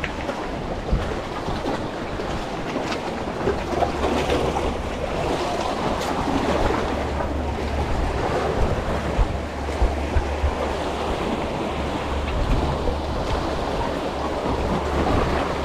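Sea water washing and wind buffeting the microphone, a steady noise with a low rumble underneath.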